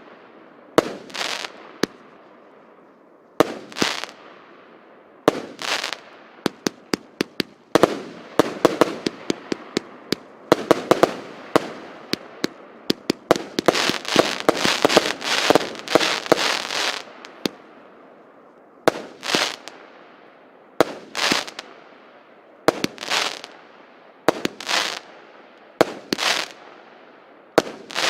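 A 100-shot, 25 mm (1-inch) firework cake firing: sharp bangs of shells launching and bursting, each trailing off. The shots come singly at first, then in a dense rapid run for several seconds, then settle back to one bang about every two seconds.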